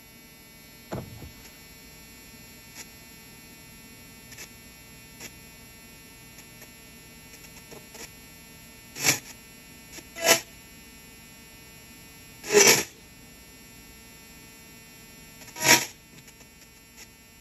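SBox-clone ghost box sweeping the radio band, heard through a DAS-ANC noise filter and a small speaker: a steady electrical hum with the sweep static filtered down, broken by four short bursts of radio sound in the second half.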